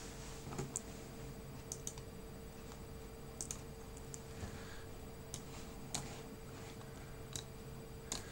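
A dozen or so faint, irregular clicks and taps, spread unevenly, over a steady low electrical hum.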